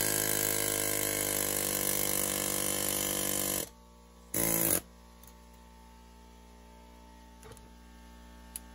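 Central Pneumatic air hammer buzzing steadily as it drives the rear CV axle's splined stub out of the wheel hub. It stops about three and a half seconds in, then gives one more short burst half a second later.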